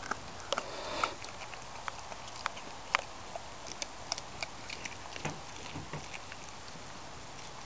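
A pit bull chewing a whole raw chicken, the bones crunching in irregular sharp cracks, several a second at times, with wet squishy chewing between.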